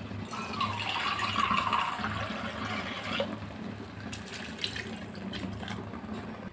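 Water poured from a vessel into a pan of curry masala and ground coconut paste, a splashing pour that is loudest for about the first three seconds and then tails off.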